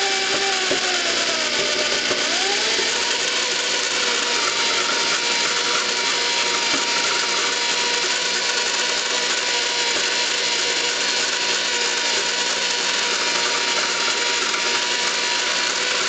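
Electric hand drill running steadily, driving a 6-32 tap against a freely spinning bolt to cut hobbed teeth into a RepRap extruder bolt. The motor's pitch wavers over the first couple of seconds, then holds steady.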